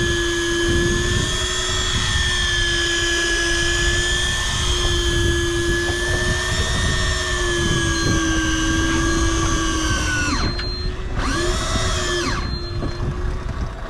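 Electric fishing reel's motor whining steadily as it winds line up from deep water, with a hooked fish on. Its pitch wavers slightly, then sags and picks up again twice near the end. Wind and water rumble underneath.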